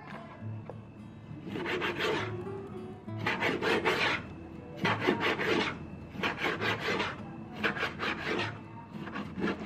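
Kitchen knife scoring a squid body on a plastic cutting board: about six cutting strokes, each under a second long and made of quick small scrapes, with soft background music beneath.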